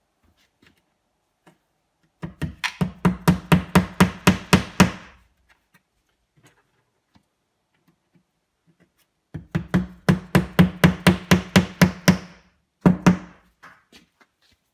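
Power drill boring two holes in drywall out to a larger size to take drywall anchors: two runs of a few seconds each with a fast pulsing chatter, about five pulses a second, then a short third burst near the end.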